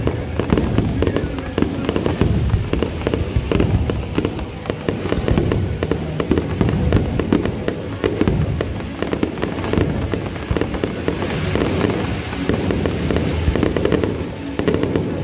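Fireworks display going off in a dense, unbroken run of bangs and crackles, with music playing underneath.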